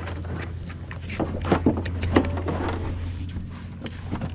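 Small boat's engine idling with a steady low hum, under scattered knocks and clatter as people and gear settle aboard.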